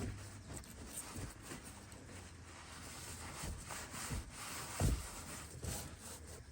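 Shop towel rubbing and scrubbing over the skid plate under an ATV, with small knocks and one low thump about five seconds in.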